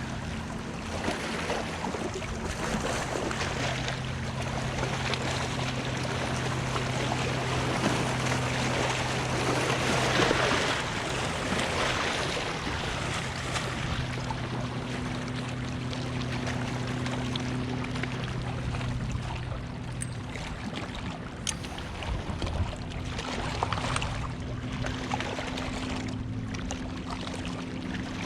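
Motorboat engine droning steadily out on the lake over wind and choppy-water noise, with a few sharp clicks about two-thirds of the way in.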